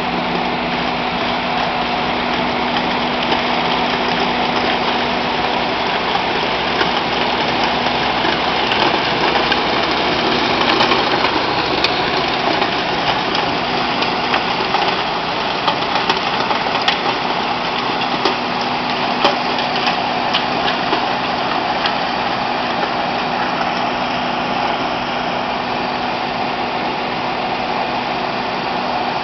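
A compact skid steer loader running steadily with a snow blower attachment. Scattered sharp ticks come through in the middle stretch.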